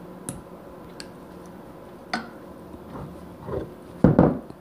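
Glass jars and kitchen utensils being handled: a few light clinks and knocks, then a louder clatter near the end as a metal mesh strainer is brought over the jars beside a steel pot.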